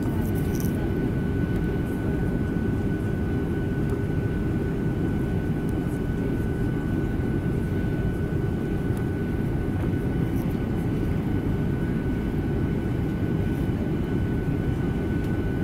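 Steady jet engine and airflow noise heard inside the cabin of a Boeing 737 airliner in flight: an even, low rumble with a faint steady whine running through it.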